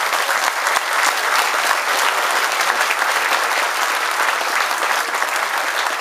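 Audience applauding steadily: many people clapping together.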